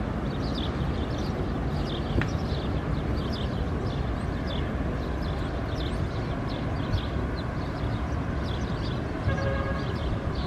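Wind on the microphone, a steady low rumble, with faint short high chirps all through. About nine seconds in, a held tone with several pitches at once starts up under the wind.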